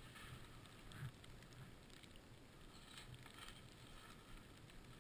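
Near silence: a faint steady hiss with a few soft, brief swishes.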